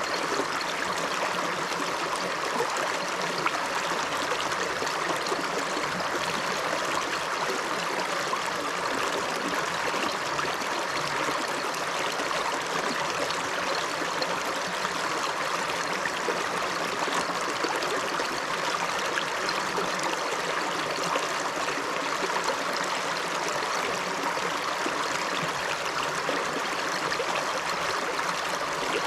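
River water flowing, a steady continuous rush with no pauses or changes.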